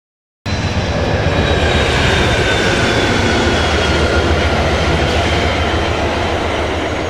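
Amtrak passenger train passing close by, led by a GE P42DC Genesis diesel locomotive and followed by its coaches: a steady rumble of wheels on rail, with a faint high tone sliding slowly down in pitch. The sound starts abruptly about half a second in.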